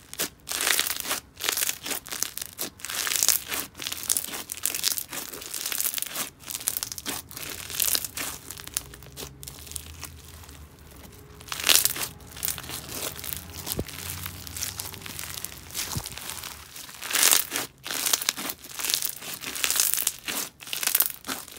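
Hands squishing and pressing a clear-glue slushy slime packed with flat opaque beads, giving a steady run of crunching crackles, with louder clusters about halfway and again near the end.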